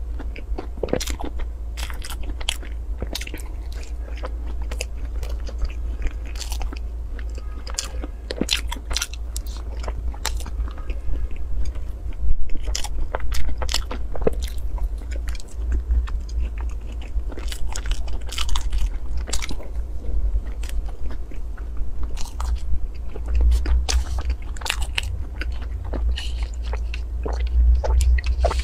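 Close-up biting and chewing of crisp-crusted round pastry puffs: many short crunchy crackles coming quickly and irregularly, over a steady low hum.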